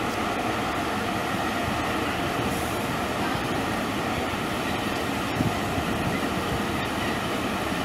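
FS Mercitalia E.652 electric locomotive moving slowly along the platform, with a steady running sound of its motors, cooling fans and wheels on the rails. There is a brief knock about five and a half seconds in.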